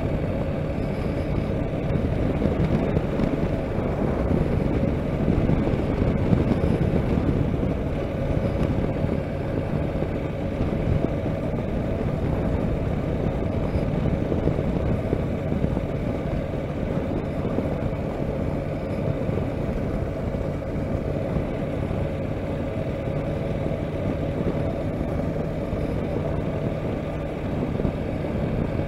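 Honda NC700X motorcycle's parallel-twin engine running at a steady cruise, with wind and road noise.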